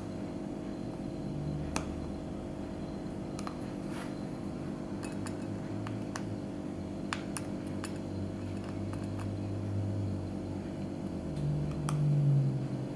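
Faint, scattered small clicks and taps of a tiny screwdriver and fingers on the iPhone 8's internal screws and brackets, over a steady electrical hum. A low rumble swells briefly near the end.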